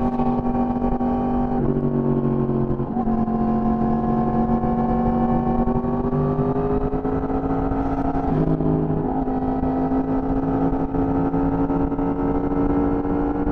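Yamaha sportbike's inline-four engine running hard at road speed, heard from the rider's seat, its pitch climbing slowly as the bike accelerates, with brief throttle changes about two, three and eight seconds in.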